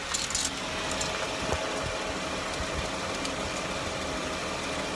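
An engine running steadily in the background, with a few light clicks near the start and a soft knock about a second and a half in.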